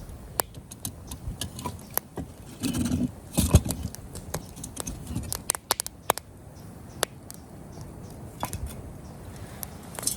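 Wood campfire crackling, with irregular sharp pops and snaps. A louder knock or shuffle about three seconds in.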